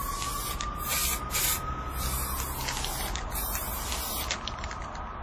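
Aerosol spray-paint can hissing in several short bursts and one longer spray that stops a little after four seconds in, over a steady low hum and a held tone that slides down about two seconds in.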